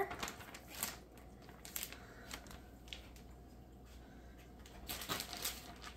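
Plastic bag rustling and crinkling in short bursts as a chicken carcass is put into it, with a denser burst of crinkling about five seconds in.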